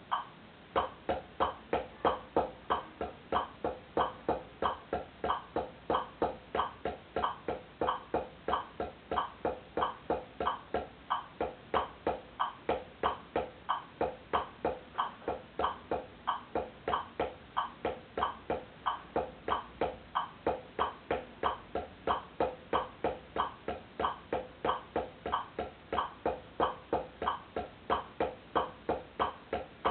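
Wooden taiko sticks (bachi) striking a flat practice pad in a steady drill, about three even strikes a second.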